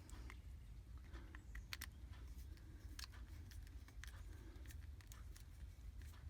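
Faint, scattered small clicks and ticks of wires and a small tool being handled while terminal connections are made, over a low steady hum.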